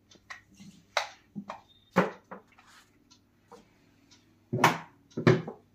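Scattered handling knocks and clicks as a power cable is plugged into a cutting plotter and moved about on the table, a few sharp taps with the two heaviest knocks near the end.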